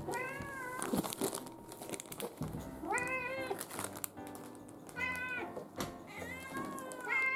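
Cats meowing about four or five times, each meow rising then falling in pitch, as they crowd around for treats, over light background music.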